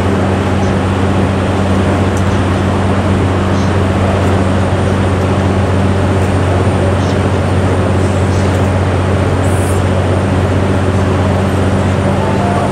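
EF64 DC electric locomotive standing with its cooling blowers running: a loud, steady rush of air over a deep, even hum.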